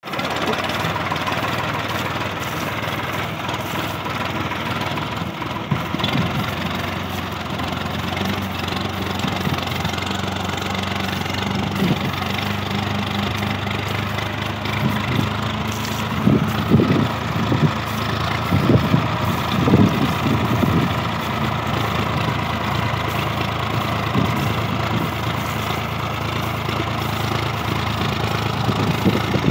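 Swaraj 855 tractor's three-cylinder diesel engine running steadily under load while pulling a plough through a field, with a few seconds of louder, uneven low rumbling about midway.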